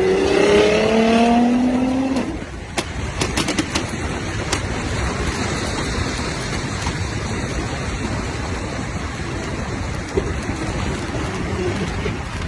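Tuned Nissan GT-R R35's twin-turbo V6 revving, its pitch rising, then cutting off about two seconds in. A quick run of sharp exhaust pops and crackles follows, then a steady noise with one more pop near the end.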